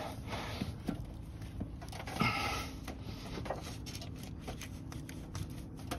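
Faint rubbing and scraping of a rubber radiator hose being worked onto the thermostat housing neck of a Dodge Charger engine, with a few small ticks and a short, louder scrape about two seconds in.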